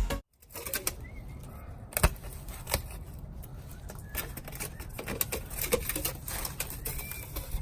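Music cuts off right at the start. Then faint scattered clicks and knocks, the sharpest about two seconds in, with a few short high chirps.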